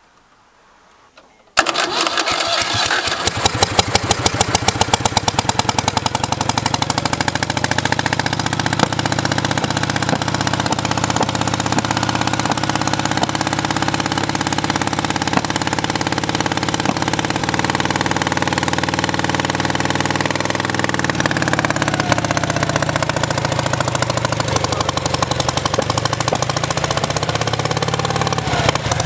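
The home-tuned engine of a Citroën Ami 6 catches suddenly about a second and a half in and runs loudly with a rapid, uneven crackle of firing pulses. The revs swell and drop a couple of times, around two-thirds of the way through and again near the end.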